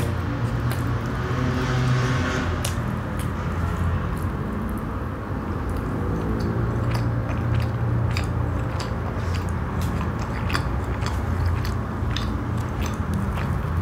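Close-miked chewing of soft stuffed naan bread, with many small wet mouth clicks and smacks.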